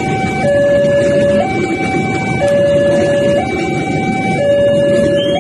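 Railway level-crossing warning alarm sounding a two-tone high-low pattern, each tone held about a second. It plays over the steady rumble of a passing train.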